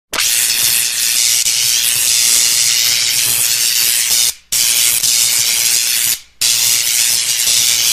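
Intro sound effect of loud, steady hissing static with a low hum underneath. It cuts out briefly twice, at about four and a half and at about six seconds in.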